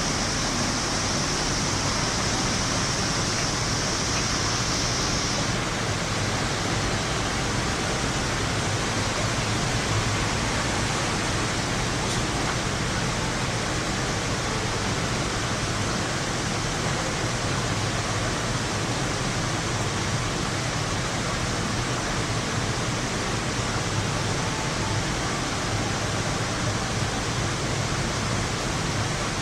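Steady heavy rain during a thunderstorm, an even hiss with no thunder claps. A thin, higher steady hiss sits on top for the first five seconds or so, then stops.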